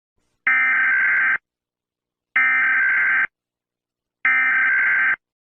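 Electronic alarm sounding three long, identical buzzy beeps of just under a second each, evenly spaced about two seconds apart.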